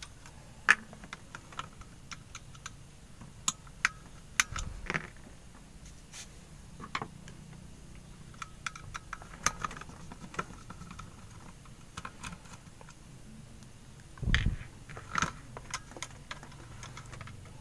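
Scattered small plastic clicks and taps as a hair straightener's plastic housing is pried apart with small screwdrivers, with a dull thump about fourteen seconds in.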